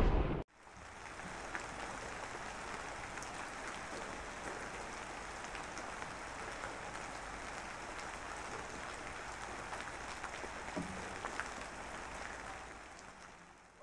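The end of the theme music cuts off about half a second in. A steady rain ambience follows: an even hiss with scattered small ticks, fading out near the end.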